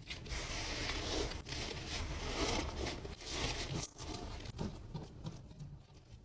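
Hands working slime: a dense run of small crackles and squishes, louder in the first part and trailing off near the end.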